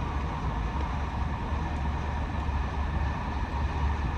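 Steady low rumble and running noise of a moving train.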